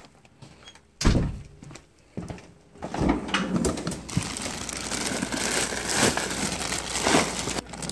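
A freezer drawer is opened with a thump about a second in. Then plastic bags and frozen food packages rustle and shuffle as things are moved around in the drawer.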